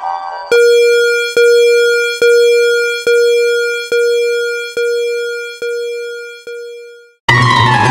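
Synthesized alarm beep from a mock emergency alert: one mid-pitched tone struck eight times a little under a second apart, each note dying away and each fainter than the last. Near the end a loud, harsh noisy sound with a falling pitch cuts in.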